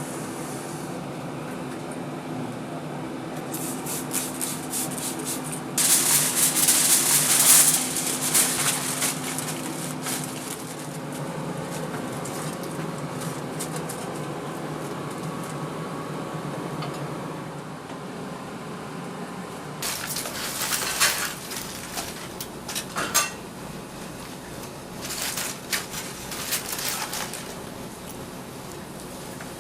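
Dishes and metal utensils clattering in bursts, a busy stretch several seconds in and more clinks later, over a steady low hum.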